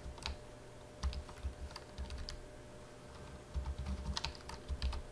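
Computer keyboard typing in short bursts of keystrokes, with pauses between them.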